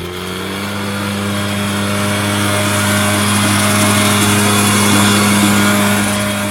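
Lawn mower engine running at a steady speed, an even unchanging hum that starts abruptly and begins to fade near the end.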